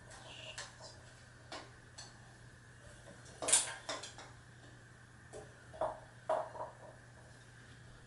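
Hunter Original ceiling fan coasting down after being switched off, with a faint steady hum under it. Irregular light metallic clinks, the loudest about three and a half seconds in, come from something loose in the fan.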